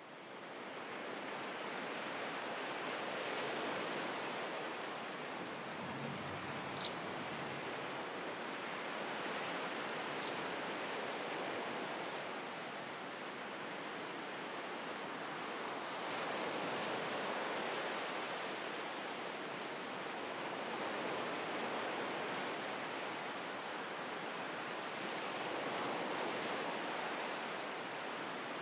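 Steady wash of surf, swelling and easing gently every several seconds. Two brief high chirps come about a quarter and a third of the way through.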